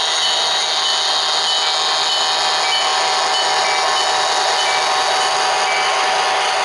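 HO-scale model freight trains running on the layout's track: a steady whir of the locomotives' motors and wheels rolling over the rails.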